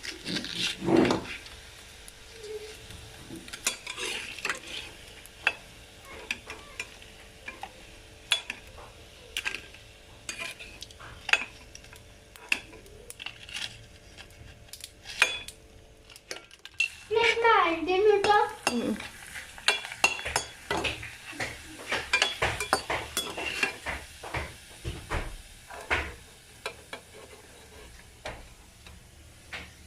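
Metal utensil clinking and scraping against a pan while food fries and sizzles in hot oil, with many short knocks throughout.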